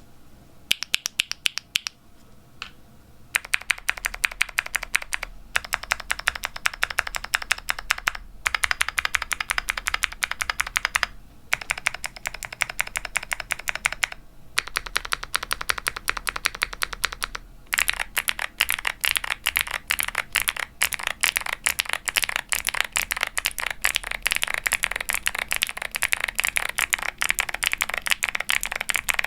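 Typing on a Womier SK75 mechanical keyboard with Gateron Melodic clicky switches, a polypropylene plate and GMK double-shot ABS keycaps: each keypress gives a crisp click followed by a deeper pop on bottom-out. The typing comes in runs with brief pauses, then goes on fast and unbroken for the last third.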